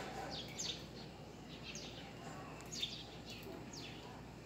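Small birds chirping: a scattering of short, high chirps that slide quickly downward in pitch, over faint steady background noise.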